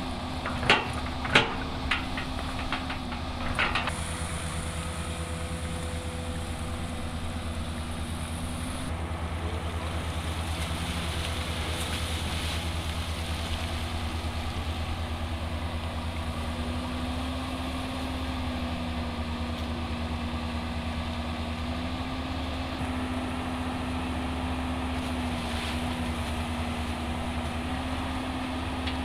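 Large engine of heavy machinery running steadily, its pitch rising a little about halfway through, with a few sharp knocks in the first four seconds.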